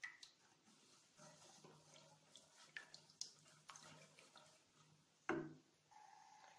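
Silicone spatula stirring milk and sugar in a pan: faint scrapes against the pan and small liquid sloshes, with one louder scrape about five seconds in.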